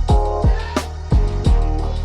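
Background music with a steady beat: deep kick drums that drop in pitch, sharp snare hits and a sustained bass.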